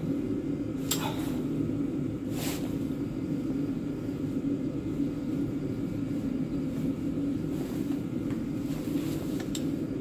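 A steady low machine hum, with a few sharp clicks on top of it about one, two and a half and nine and a half seconds in, from a caulking gun being worked to squeeze out exhaust assembly paste.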